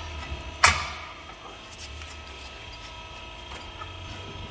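One sharp metal strike with a brief ring about half a second in, as a long steel tire bar is swung down onto the bead of a large OTR tire on its steel rim to break it loose. A steady low shop hum runs underneath.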